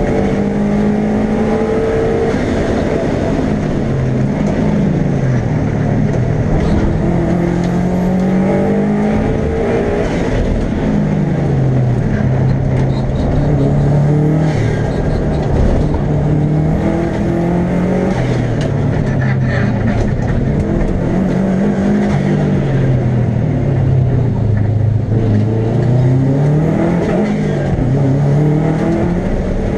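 Subaru Legacy RS Group A rally car's turbocharged 2.0-litre flat-four boxer engine under hard driving, heard from inside the stripped cabin. The engine note climbs and drops again and again as the car accelerates, lifts and shifts through the corners.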